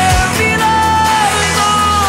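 Background music: a pop song with a held, sliding sung melody over a steady bass line.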